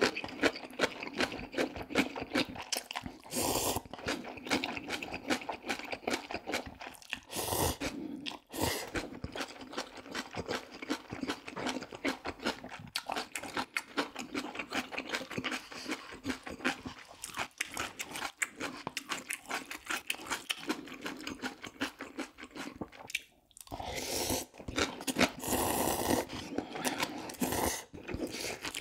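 A person eating close to the microphone: continuous wet chewing and crunching of a meal of instant ramyun noodles, kimbap and kimchi, with a few louder stretches of eating noise.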